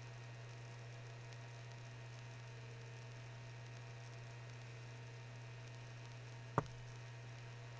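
Faint steady electrical hum and hiss from a webcam's built-in microphone, with one sharp click near the end.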